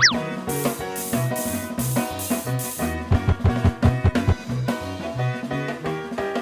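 Background music with a steady beat of drums and bass, with a quick falling tone right at the start.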